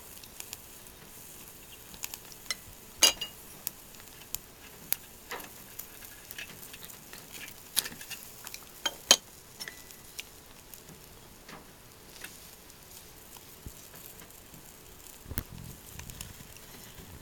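Rice ball sizzling on a grill over a small salad-oil fire, with scattered sharp pops and clicks, the loudest about three seconds in and about nine seconds in.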